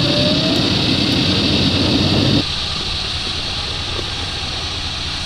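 Four-wheel drive crawling up a rutted track, its engine running under load with a whine that rises in pitch. About two and a half seconds in, the sound cuts abruptly to a quieter, steady running sound with a high hiss over it.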